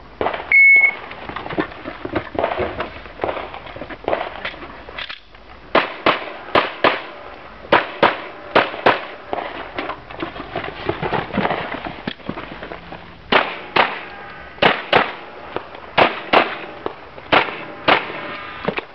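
A shot timer's short steady start beep, then a string of pistol shots fired in quick pairs and runs with brief pauses between, beginning about six seconds in.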